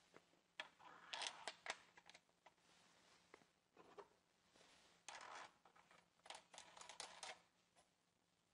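Faint clicks and light metal scraping as a turning tool is slid onto a crankshaft tensioning pin and its flange nut is threaded on by hand, in two short spells: about a second in and again from about five seconds in, near silence between.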